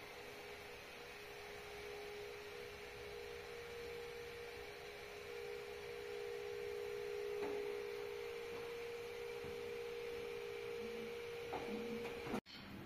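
A steady, even humming tone, held without change and cut off suddenly near the end.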